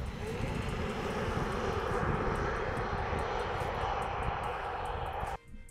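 Kia EV9 GT-Line, the dual-motor all-wheel-drive electric SUV, accelerating flat out from standstill on a 0-100 km/h run. A steady rushing of tyres and air, with a faint rising motor whine at the start, cuts off suddenly near the end.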